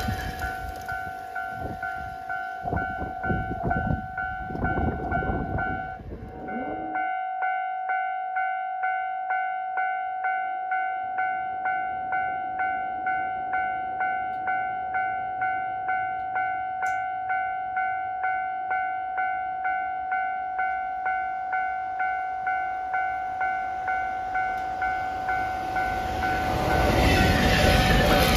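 A train runs past, its wheels knocking over the rail joints, and its noise cuts off about six seconds in. A railway level-crossing warning bell rings a steady ding-ding about twice a second throughout. Near the end the rumble of the next train rises.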